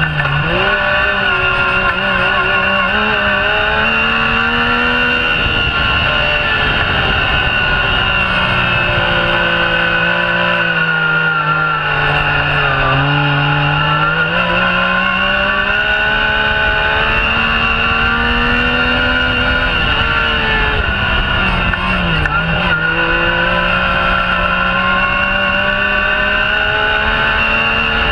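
Yamaha YXZ1000R side-by-side's three-cylinder engine running hard on the dunes, heard from on board. The revs climb and fall with the throttle, dropping sharply and picking up again about halfway through and again around three-quarters of the way through.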